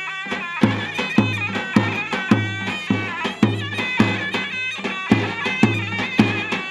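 Turkish halay dance music on davul and zurna: a shrill, wavering double-reed melody over a steady bass-drum beat about twice a second.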